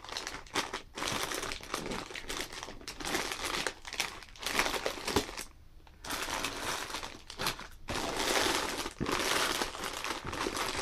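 Plastic snack-bag wrappers crinkling and rustling as a hand rummages through a cardboard box of packaged snacks, with a brief lull about halfway through.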